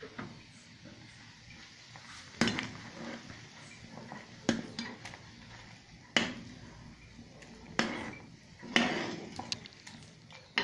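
A kitchen utensil clanking against a cooking pot: five sharp knocks a second or two apart, the last one running into a longer scrape near the end.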